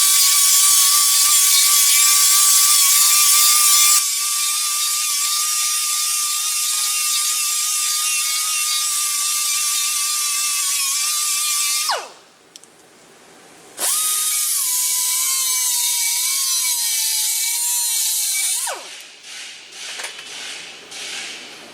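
Power grinder running with a steady high whine, spinning down and stopping about twelve seconds in, then starting again with its pitch wavering as it bears on the metal, grinding edges at a brake caliper bracket. It stops about nineteen seconds in, leaving a few faint clicks.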